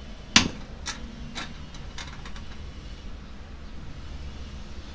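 Clicks and taps of a screwdriver and loose screws against the scooter's hard plastic parts as screws are backed out: one sharp click about half a second in, then a few lighter clicks, over a steady low rumble.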